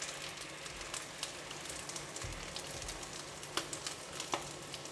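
Teriyaki sauce thinned with water sizzling and crackling in a hot non-stick wok, the heat just switched off, as a silicone spatula stirs through it. A steady crackly hiss, with a couple of sharper clicks in the second half.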